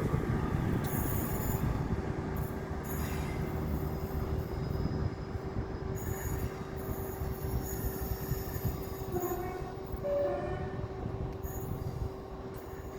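Class 158 diesel multiple unit pulling out of the station, its low diesel rumble slowly fading as it draws away, with a steady hum underneath and a couple of brief high tones about nine and ten seconds in.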